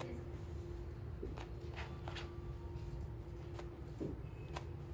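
Dyed human-hair weft bundles rustling and swishing as they are lifted and shaken by hand, a few soft swishes, over a steady faint hum.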